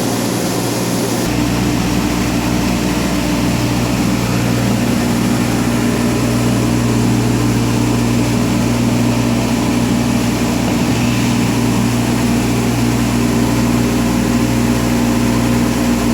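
CNC router running steadily, a loud machine hum with several steady tones over a noisy hiss. A little over a second in, its sound shifts: a deeper rumble comes in and a high tone drops out.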